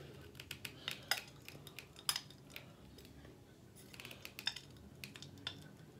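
Scattered faint clicks and taps of plastic as a lotion tube is squeezed upside down into a small travel bottle. The two sharpest clicks come about a second and two seconds in, with a quicker run of light taps about four seconds in.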